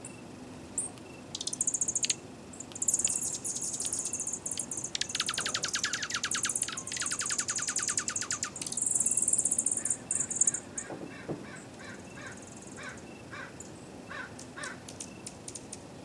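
Dark-eyed juncos calling: high, thin twittering for most of the first ten seconds, with a rapid trill in the middle, then scattered short tick notes.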